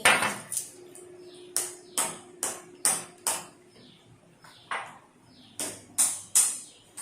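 Cutlery and dishes clinking: a string of sharp taps with a short ring, about two a second.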